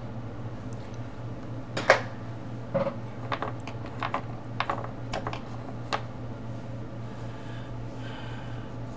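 About ten light clicks and taps of coloring tools being handled on a table, the loudest about two seconds in and the rest spread over the next four seconds, over a steady low hum.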